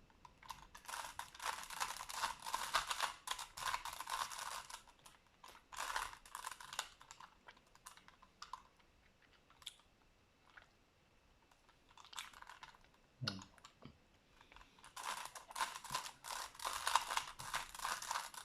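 Rubik's cube being turned in quick runs of moves, its plastic layers clicking and clattering, with short pauses between runs: the last moves of a solve.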